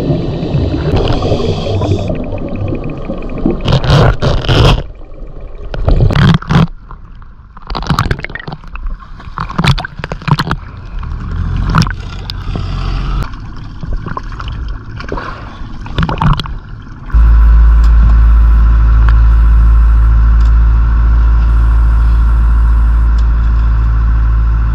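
Water sloshing and splashing in uneven surges around the camera at the sea surface. About two-thirds in, it gives way suddenly to the loud, steady low drone of a fishing boat's engine running, heard from on deck.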